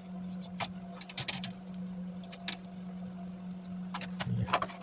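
Scattered light clicks and rustles of plastic laptop parts being handled, over a steady low hum.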